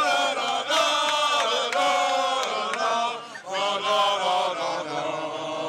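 A crowd of men chanting together in long, held, sung notes, with a short break about three and a half seconds in before the chant picks up again.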